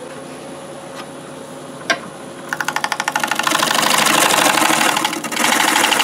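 A wood lathe runs with a steady hum. From about two and a half seconds in, a bowl gouge bites into the spinning black locust bowl: a loud, rapidly pulsing cut as the gouge takes away a sharp ledge of wood on the rim.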